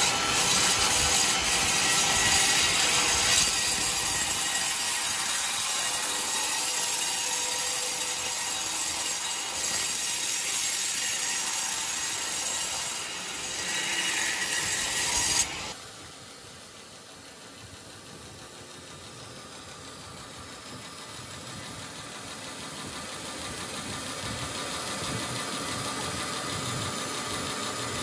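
Vertical band saw ripping lengthwise through a coconut palm log, a loud steady rasping of the blade in the wood. About fifteen seconds in the sound drops off suddenly to a much quieter mill noise that slowly grows louder.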